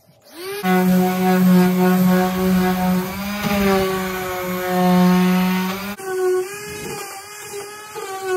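Electric orbital sander running on plywood: a steady motor whine with the rasp of the pad on the wood, starting about half a second in.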